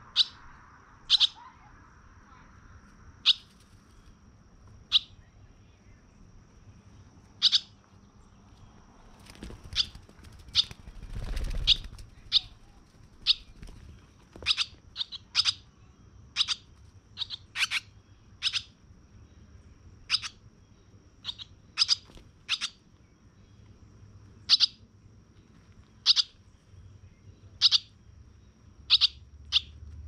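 A bird giving single short, sharp, high chirps, one every second or so, coming closer together in the second half, over a faint steady high tone. A brief rustling noise comes about eleven seconds in.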